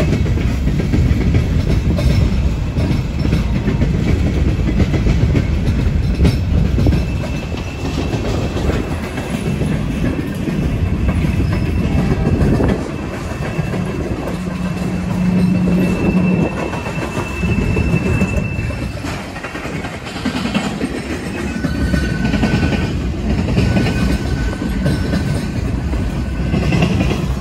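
Freight train passing close by: steel wheels clattering and rumbling over the rail joints as tank cars, covered hoppers and autoracks roll past, with faint thin wheel squeals from about a quarter of the way in.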